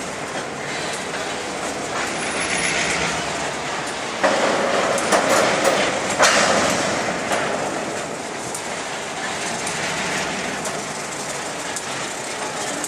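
Covered grain hopper cars rolling slowly past, their steel wheels rumbling and clacking over the rail joints, with a harsher, louder stretch about four to six seconds in.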